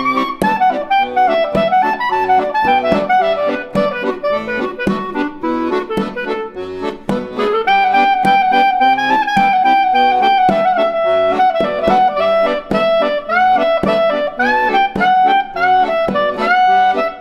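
Instrumental background music: a melody of quick changing notes, with one longer held note about halfway through, over short sharp accompanying notes.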